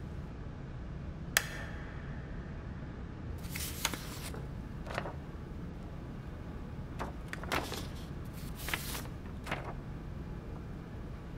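Stiff paper cards being handled at a table: several short rustles and flaps, with one sharp tap about a second and a half in, over a low steady room hum.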